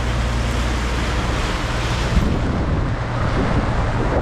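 Wind, rain and the sea rushing past a sailboat's hull in a thunderstorm, a dense steady rush over a constant low hum, with one knock about two seconds in.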